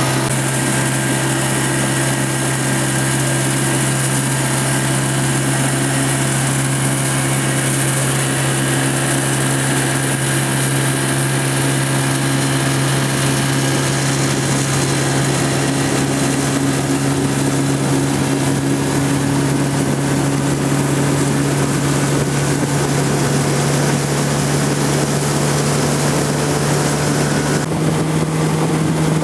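A small motorboat's engine running steadily under way, a constant drone with a hiss of water and air over it. Near the end the drone steps up slightly in pitch.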